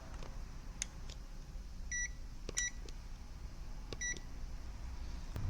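Meter beeping three times in short, high, steady beeps while probing the pins of an iPad charging-port connector, with a few light clicks of the probe tips touching the board.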